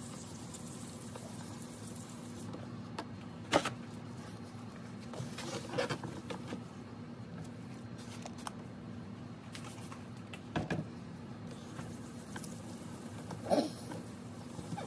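Quiet wet scrubbing of a sponge sanding block on the clear plastic lens of a Code 3 XS8000 light bar, with a few sharp knocks, over a steady low hum.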